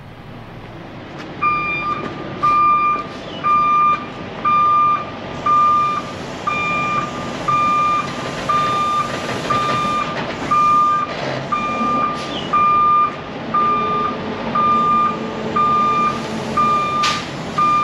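Tractor-trailer backing up with its reversing alarm beeping about once a second, a single steady tone repeated evenly, over the steady running noise of the truck. The beeping starts about a second and a half in.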